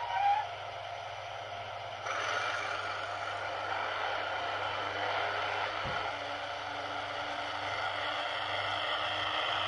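H0 model freight train of stake wagons rolling slowly along the layout track, a steady clattering running noise that gets louder about two seconds in, over a low steady hum. A short tone sounds right at the start.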